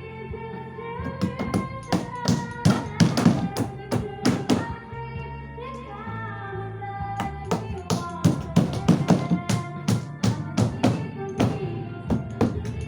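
Background music with a run of sharp, uneven knocks on top, several a second, thickest in the second half.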